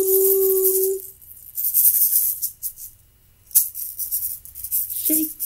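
An egg shaker shaken in bursts, a rattling hiss, with a brief pause in the middle. A held sung note ends about a second in, and singing starts again near the end.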